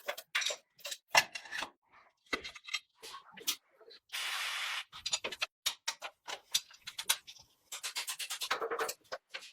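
Hand tools working on motorcycle parts: metal clinks and knocks, a short hiss about four seconds in, and a fast run of even clicks near the end.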